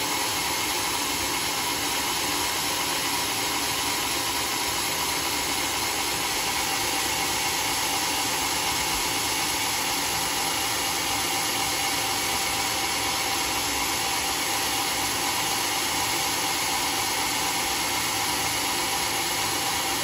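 Band sawmill running without load, a steady even whir with a few steady tones and no cutting.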